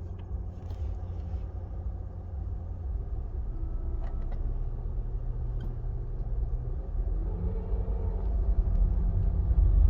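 Cabin sound of a 2022 Volkswagen Polo 1.4 with a 7-speed DSG gearbox under way: a steady low engine and road drone. About seven seconds in the engine note changes, as at a gear change, and the sound grows slightly louder. The owner complains of a grinding noise from this gearbox on the first-to-second shift.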